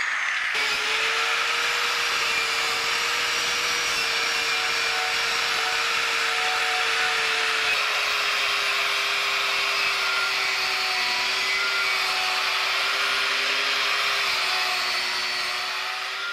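Small angle grinder with a heavy wire brush attachment scouring rust off a steel barbecue plate: a steady motor whine over a harsh scratching hiss of wire on metal. The whine drops slightly in pitch about halfway through and starts to fade near the end.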